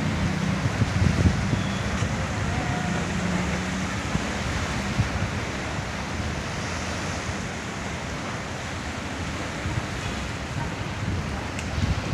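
Strong wind gusting over the microphone with the rushing wash of heavy sea waves, an even, unbroken noise. A faint low hum sounds in the first few seconds.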